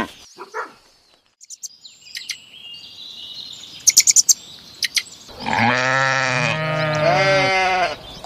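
Scattered short high bird chirps, then about five seconds in a long, loud bleat from sheep or goats lasting nearly three seconds.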